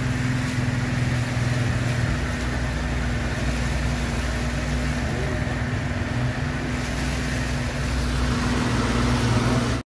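Small fishing boat's outboard motor running at a steady pitch, with the rush of water and wind as the boat moves along. The sound drops out for an instant at the very end.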